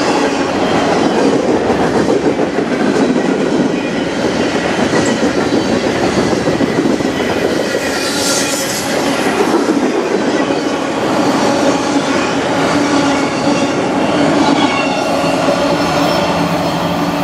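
Freight cars of a manifest train rolling past close by: steel wheels clacking over the rail joints in a loud, steady rumble, with thin squealing tones from the wheels on the rails.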